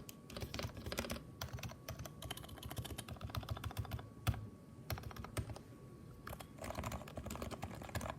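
Typing on a Leopold FC660C keyboard with Topre switches, silenced with lubed slider rails and a foam-lined case: quick runs of keystrokes with short lulls, one stroke about four seconds in louder than the rest.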